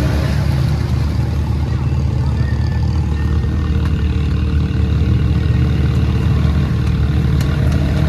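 Off-road vehicle engine running steadily at low revs, with no revving up or down.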